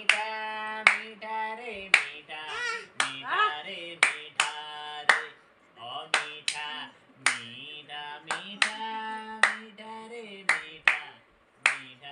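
A voice singing a wordless tune in long held notes, with sharp hand claps about once a second keeping time.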